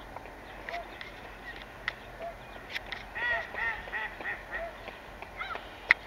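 Gulls calling: a few faint single calls, then a quick run of about five short, arched calls around the middle, with a few sharp clicks between them.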